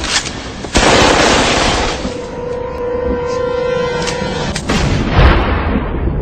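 Gunshot sound effects with a booming tail, layered over music. There is a loud shot about a second in and another burst about five seconds in.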